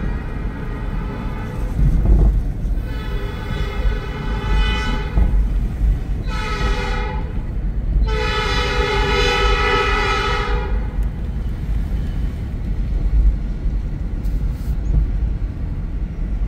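Multi-chime air horn of Escanaba & Lake Superior locomotive 501 sounding the grade-crossing pattern. The end of one long blast fades about a second in, then come a long blast, a short one and a final long one. It is heard from inside a moving car, over steady low road rumble.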